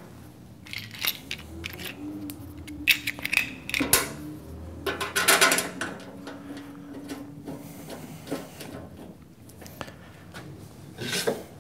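Scattered small metallic clicks, taps and clinks from hands working the sheet-metal end cover of a Grizzly G0602 lathe, closed over its pulleys and change gears. The clinks bunch up about three to five and a half seconds in, with another near the end.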